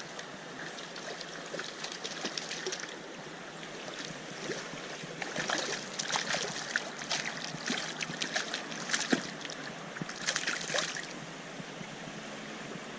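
Stream water running steadily, with bursts of irregular splashing in the water through the middle and latter part.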